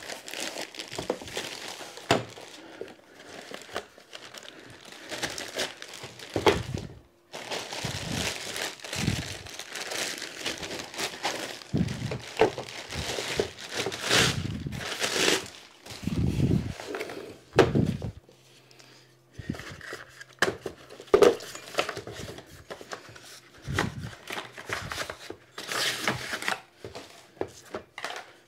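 Packaging crinkling and rustling while a bicycle repair stand's parts are unpacked from their box, broken by irregular knocks of parts being handled and set down.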